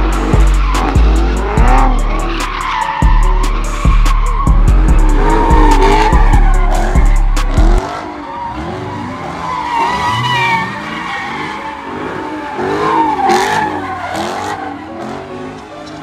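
Cars drifting, engines revving up and down and tyres squealing. A heavy bass-thumping beat of music plays over the first half and stops about halfway through, leaving the revving and tyre squeal.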